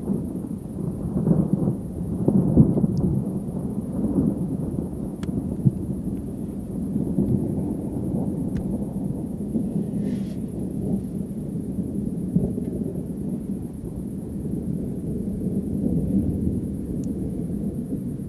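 Thunder rumbling and rolling almost without pause, a deep continuous rumble that swells loudest about one to three seconds in and then rolls on steadily.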